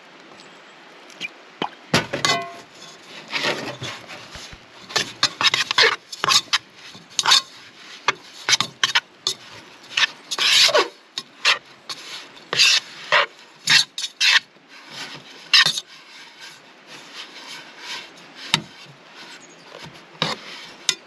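Table knife scraping and clinking against the inside of a metal pot, stirring and cutting through damper dough in quick, irregular strokes.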